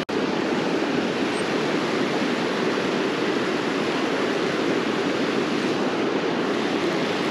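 River water rushing over rocks in a fast run, a steady, even rush that cuts out for an instant right at the start.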